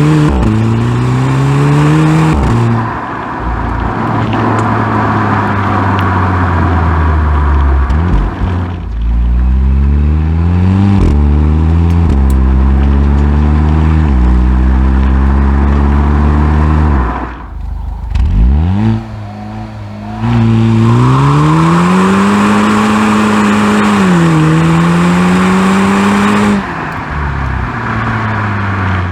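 VW Golf 6 GTI's turbocharged 2.0-litre four-cylinder engine through its stock exhaust, accelerating in runs: the pitch climbs and drops sharply at each DSG upshift, several times. About two-thirds through it goes quiet briefly as the throttle is lifted, then pulls and shifts up again.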